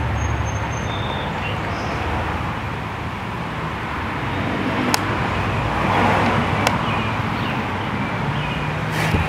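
Gasoline being poured from a can into a lawn mower's fuel tank, a steady rushing pour that swells a little past the middle, with two sharp clicks, over a steady low hum.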